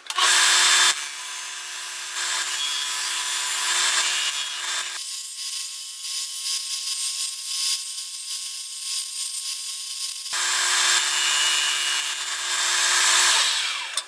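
Combination belt and disc sander running, with a wooden block pressed against the spinning sanding disc: a steady motor hum under the harsh rasp of abrasive grinding wood. The hum changes abruptly in pitch about five seconds in and changes back about ten seconds in, then the sound fades away near the end.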